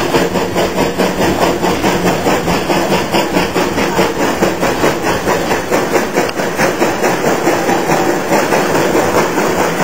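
Narrow-gauge oil-fired steam locomotive working along under steam, heard from just behind its tender: a rapid, even exhaust chuff of about four beats a second over the running noise of the train.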